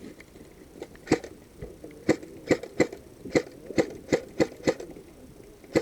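Airsoft gun fired semi-automatically close by: about nine sharp shots in quick succession, two to three a second, each with a brief mechanical ring.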